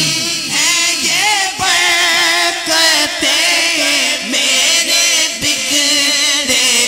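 A male naat reciter singing unaccompanied into a microphone, in long, wavering, ornamented phrases with brief breaths between them, over a steady low drone.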